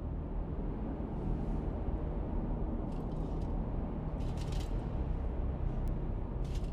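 A steady low rumble, with a few faint brief sounds around the middle and near the end.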